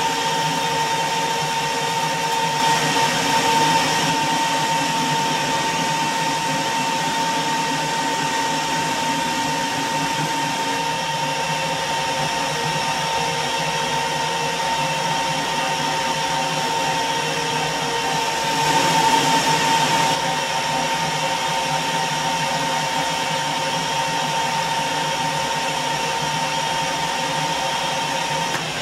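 Metal lathe running under power while a motor-driven top slide feeds the cutting tool into the spinning metal workpiece, taking a taper cut. A steady whine over the machine noise, briefly louder twice: about three seconds in and again about two-thirds of the way through.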